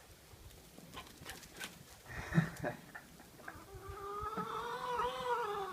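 A puppy whining: one long, drawn-out whine of about two seconds that rises slightly and then falls, starting just past halfway, after a few light clicks and taps.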